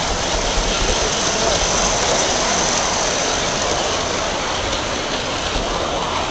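Garden-scale model train rolling along its track: a steady, even rushing noise of wheels on rails, picked up by a camera riding on the train.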